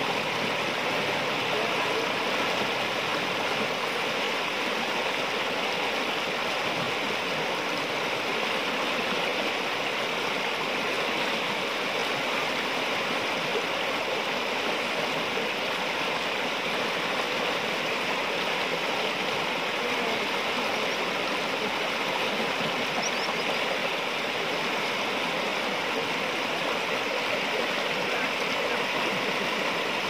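Shallow, muddy river rushing and splashing over rocks in small rapids, a steady unbroken rush of water.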